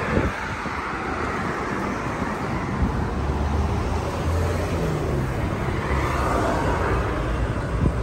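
Steady motor-vehicle and traffic noise, with a low engine hum coming in about three seconds in.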